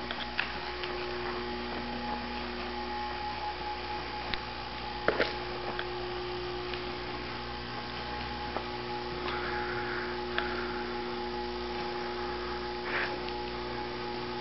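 Steady electrical hum, with a few faint knocks.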